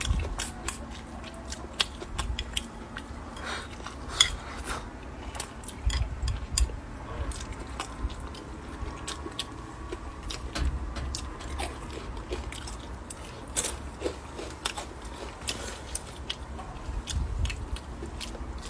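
A person chewing and crunching food, with many sharp clicks from the mouth and a few dull low thumps.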